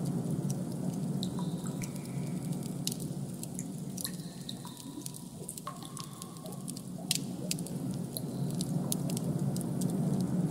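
Designed ambient background sound: a steady low droning hum that dips quieter in the middle, with scattered sharp clicks and a few short, high held tones.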